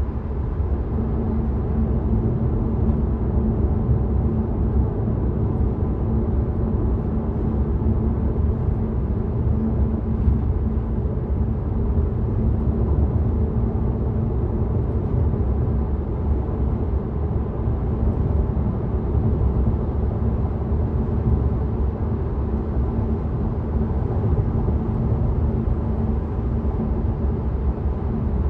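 Steady road and tyre noise of an electric Tesla on the move, heard as a continuous low rumble with a faint steady hum and no engine sound.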